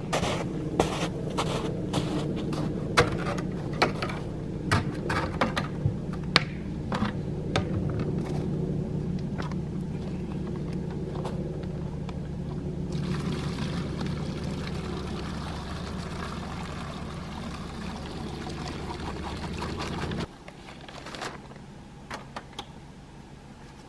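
Maple sap being poured into a collecting bucket: a splashing pour that starts about halfway through and stops suddenly a few seconds before the end. Under it runs a steady low hum, with sharp knocks and clicks in the first half.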